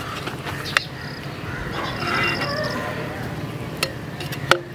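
Metal ladle scraping and turning cooked biryani rice in a large aluminium pot after its dum, with a few sharp knocks of the ladle against the pot, the loudest near the end.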